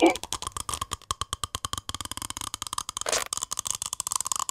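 Cartoon sound effects: a fast, even run of clicks over a steady tone, with a short wavering squeak at the start and another about three seconds in.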